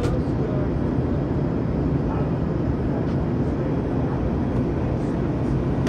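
Steady cabin noise inside an Airbus A321 in flight: the even drone of the jet engines and airflow, heaviest in the low range.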